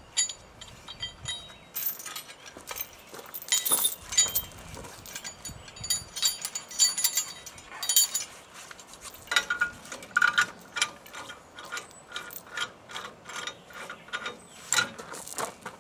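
Steel chain and logging tongs clinking and rattling as they are handled and hooked onto a log skidder frame, in several runs of quick metallic clinks.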